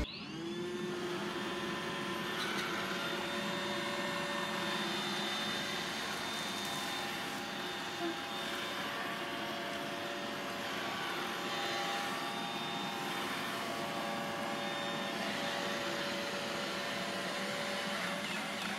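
Robot vacuum cleaner running: a steady whir of its motor and brushes, with a few constant humming tones.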